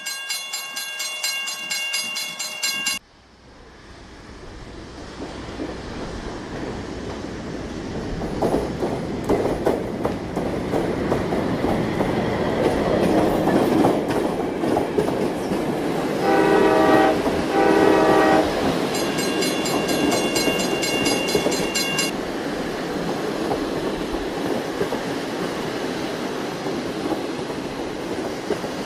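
Children's fairground train ride running on its small circular steel track: wheels clattering and rumbling on the rails, building up from about three seconds in. Electronic train-horn sounds from the ride play over it: a held high whistle tone at the start, two short lower toots a little past halfway, then another held high whistle tone.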